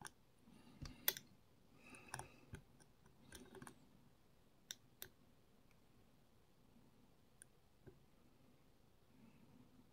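Faint, scattered metallic clicks of a dimple pick and tension tool working the pins inside a seven-pin Herman dimple lock under heavy tension. Most clicks fall in the first four seconds, with a few single ticks later.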